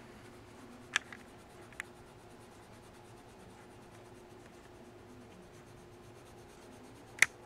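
Red coloured pencil shading on drawing paper: a faint, steady scratching, with a couple of small ticks early and one sharp tick near the end.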